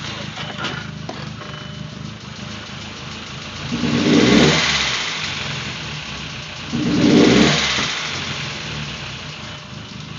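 VW GTI 1.8T turbocharged four-cylinder engine idling and blipped twice, about four and seven seconds in, each rev sinking back slowly to idle. The engine is running badly after a turbo swap, with codes for a misfire in cylinder 4, the knock sensor and the air/fuel mixture, and the owner has not found the cause.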